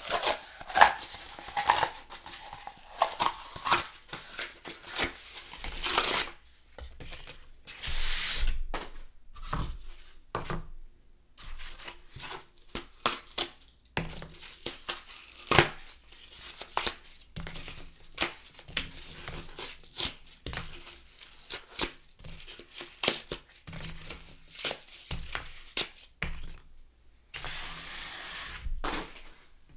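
Cardboard being torn, with long rasping rips for the first several seconds. From about ten seconds in, an egg carton is torn apart in many short rips and cracks, with one longer rip near the end.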